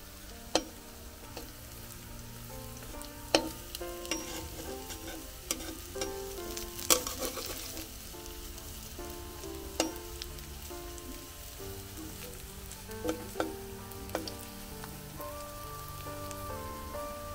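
Oil sizzling as cauliflower-leaf fritters shallow-fry in an iron kadai, with sharp clacks of a metal spatula against the pan about eight times as the fritters are turned. Background music plays underneath.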